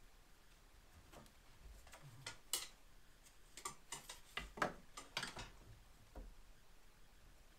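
A scattered run of light clicks and taps, most of them crowded between about two and five and a half seconds in, from wood pieces and hand tools being handled while shelf brackets are built.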